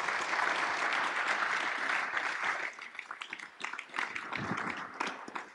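Audience applauding: a dense patter of many hands clapping that thins out after about two and a half seconds into scattered separate claps.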